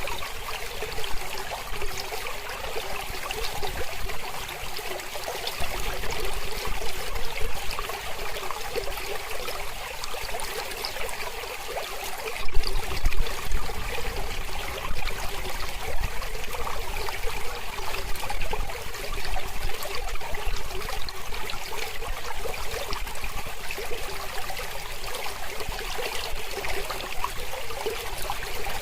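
Mountain river flowing: a steady rush of running water, briefly louder about twelve seconds in.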